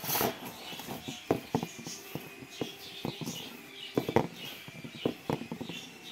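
A hand mixing dry whole-wheat flour and salt in a steel bowl: irregular soft clicks and knocks as the fingers scrape and tap against the bowl.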